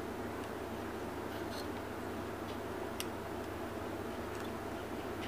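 Light clicks and handling noise from the metal struts and fittings of a 1928 Agfa Billy Record folding camera being turned in the hands, with one sharper click about three seconds in, over a steady background hiss.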